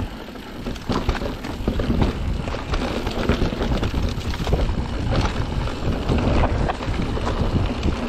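Mountain bike descending a dirt forest trail: wind buffets the microphone over a low tyre rumble, with frequent small knocks and rattles from the bike over rough ground.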